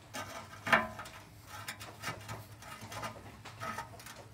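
Small metallic clicks and scrapes as a wideband oxygen sensor is turned by hand into its threaded exhaust bung, with one sharper click just under a second in.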